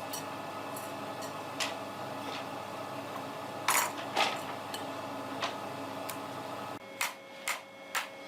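Scattered sharp knocks and clicks of hand work in a workshop, over a steady hum. The hum stops abruptly near the end, followed by three quick knocks.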